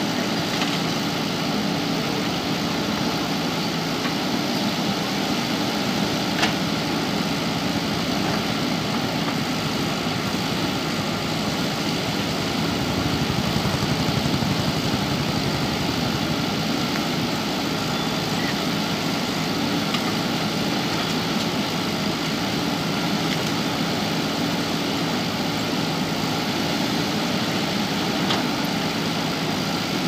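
JCB backhoe loader's diesel engine running steadily as the backhoe arm digs, getting somewhat louder around the middle. A brief sharp knock about six seconds in.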